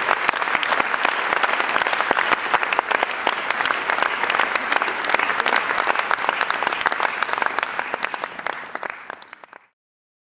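Audience applauding: dense, steady clapping that thins out after about eight seconds and then cuts off suddenly.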